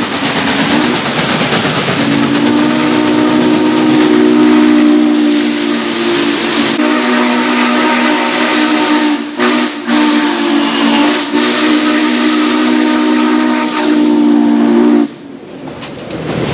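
Norfolk & Western 611 steam locomotive whistle: a short blast, then one long held chord of several notes over loud steam hiss. The long blast drops out briefly twice a little past the middle and stops near the end.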